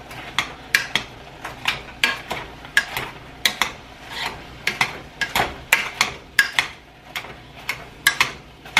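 Potato masher working boiled potatoes in a saucepan, its head clacking against the bottom and sides of the pot in quick, uneven strokes, about two to three a second.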